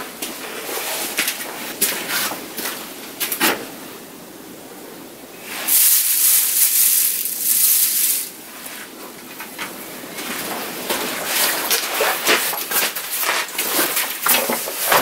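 Person moving about on wooden boards, with knocks, footsteps and rustling of clothing and a backpack being handled. A louder rustling stretch lasts about two seconds, a little after halfway through.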